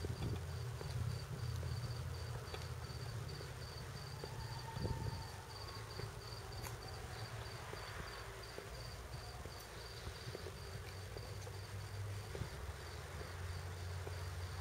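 A cricket chirping steadily at a high pitch, about four chirps a second, over a faint low rumble.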